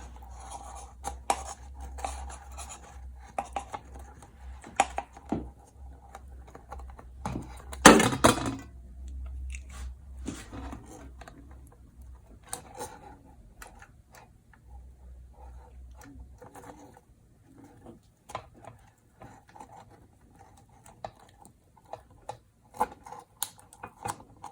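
Ceiling fan parts being handled and fitted together: scattered clicks, rattles and scrapes, with one louder knock about eight seconds in. A low steady hum in the background stops about two-thirds of the way through.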